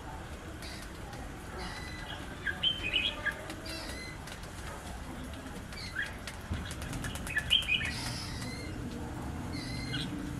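Small birds chirping in short, quick-gliding calls every second or two, with light rustling and a run of fast clicks about seven seconds in.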